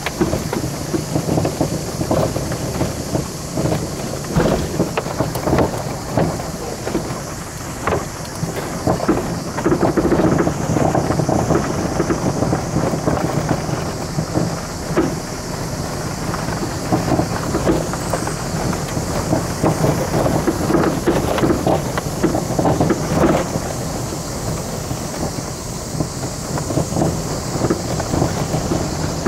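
Inside the cabin of a Citroën Saxo driving over a rough gravel track: a continuous rumble of tyres on loose stones, broken by frequent short knocks and rattles from gravel striking the car and the suspension working over ruts.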